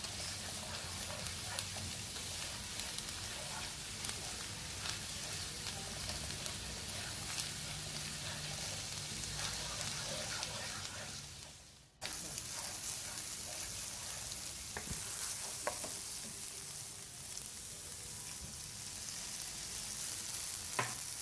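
Hot oil sizzling as tinned tomato paste fries with onions, garlic and ginger in a pan, with a wooden spoon stirring and scraping through it. The sizzle cuts out briefly near the middle and comes straight back.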